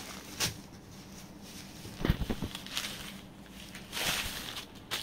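Smooth silk foil saree fabric being handled and unfolded on a table, rustling in short swishes, with a dull thump about two seconds in.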